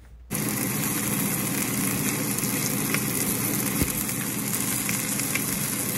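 Beef bones and chopped carrot, celery and onion searing in a little oil in a stockpot: a steady sizzle with small crackles, starting abruptly just after the start.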